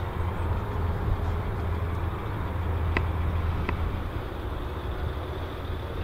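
John Deere 4240 tractor's six-cylinder turbo diesel engine running steadily under load while pulling a four-furrow plough, a constant low drone. Two short clicks come about three seconds in, a little over half a second apart.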